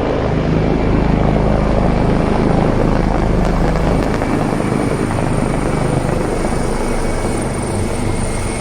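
Military helicopter flying overhead: a loud, steady rotor thrum with a thin turbine whine on top, easing slightly in the second half.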